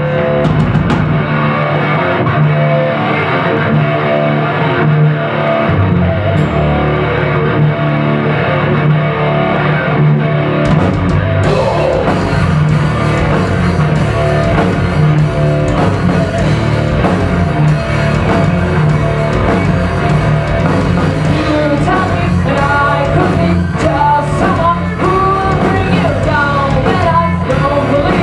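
Rock band playing an original song: the electric guitar riff opens, bass comes in around six seconds, the full band with drums and cymbals joins about eleven seconds in, and a female singer starts singing in the last third.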